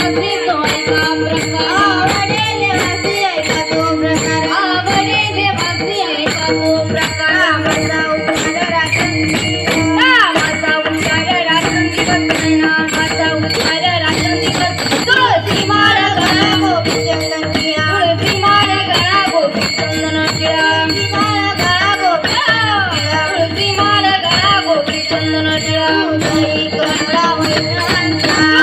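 A woman singing a Marathi Varkari devotional song, her melodic line bending and ornamented, over a steady held drone and jingling metallic percussion keeping an even beat.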